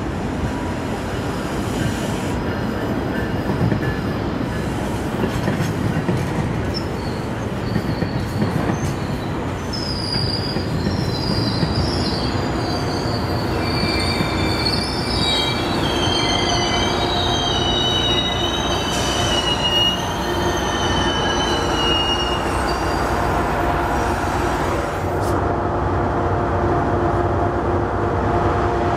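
GO Transit commuter train rumbling into the station and slowing, its steel wheels giving several high, wavering squeals through the middle of the passage.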